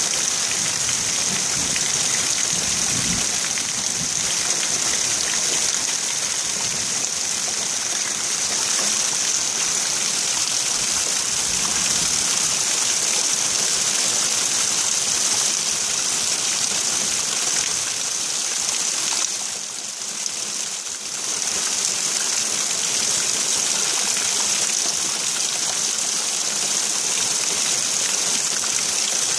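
Heavy rain falling steadily as a constant hiss, with a low rumble underneath a few seconds in. The rain dips briefly quieter about twenty seconds in.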